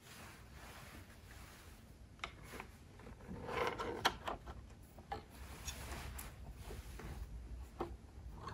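Plastic Tenyo magic prop handled on a small table: faint clicks and taps as its pieces are set and moved, with a rubbing slide about three and a half seconds in.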